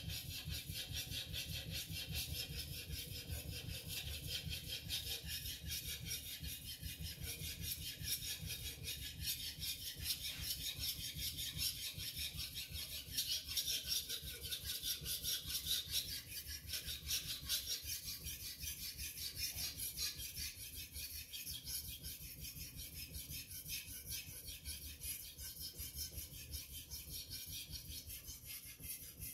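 A Tojiro VG10 kitchen knife blade stroked rapidly back and forth on an Arashiyama #6000 Japanese finishing waterstone, a steady run of quick scratchy strokes.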